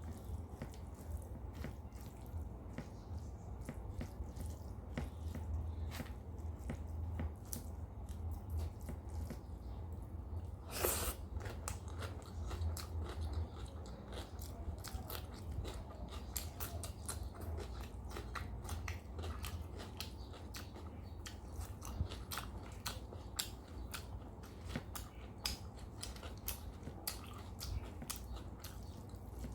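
Close-miked chewing and biting through a meal of rice, dal, fish curry and fried vegetables: a steady stream of wet mouth clicks and small crunches, with one louder crunch about eleven seconds in, over a low steady hum.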